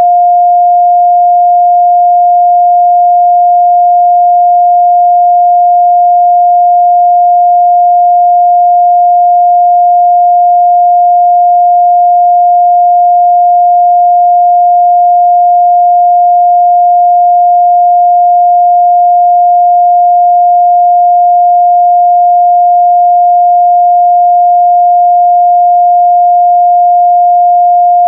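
A steady, loud 706 Hz sine-wave test tone, a single pure pitch held without change.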